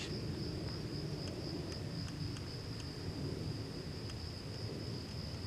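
Crickets chirping in a steady high trill over a low background rumble.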